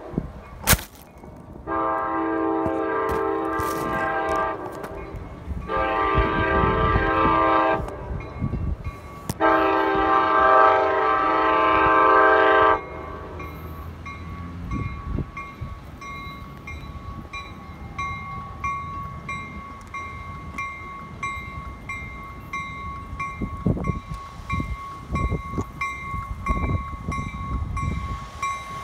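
Train air horn sounding three long blasts. Its chord cuts off about halfway in, and a railroad crossing bell then rings steadily with an even beat.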